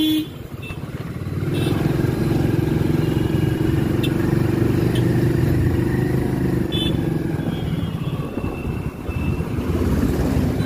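Motorcycle engine running under way. It eases off briefly, then picks up again about a second and a half in and holds steady.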